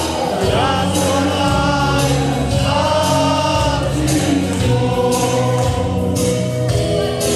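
Live amplified band music: a man singing a melody into a microphone with many voices singing along, over a steady bass and drum beat.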